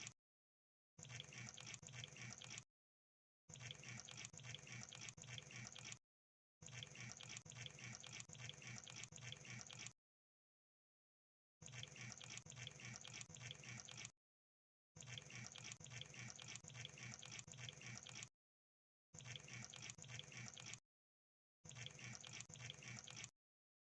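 A crab's faint, fine crackling clicks, coming in about seven bursts of two to three seconds each, with short gaps of silence between them.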